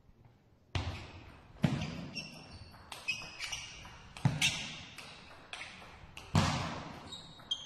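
Table tennis rally: the ball knocks off the bats and the table in an irregular run of sharp clicks, starting about a second in, each with a short echo from the hall.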